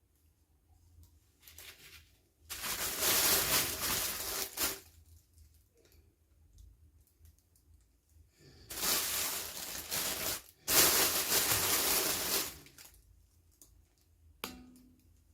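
Toy packaging being torn open and crinkled by hand in three bursts of a second or two each, with quieter rustling between.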